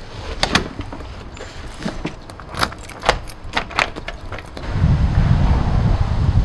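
Keys jangling and a door being shut and locked by hand, a quick string of sharp clicks and knocks from the key, latch and lever handle. About three quarters of the way through, a loud low rumble takes over.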